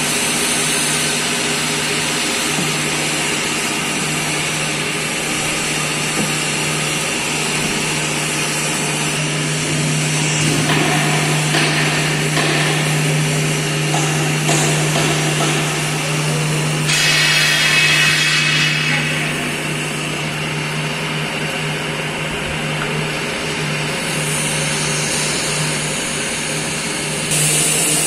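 Machinery of a milk powder mixing and packing system running with a steady low hum, with a louder rushing stretch lasting about two seconds, about two-thirds of the way in.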